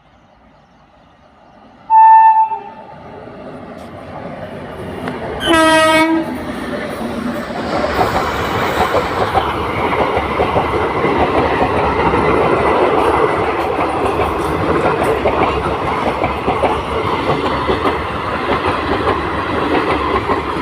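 Train horn sounding two short blasts, the first higher-pitched and the loudest, then the train running past with a steady rumble and rapid clatter of wheels on the rails.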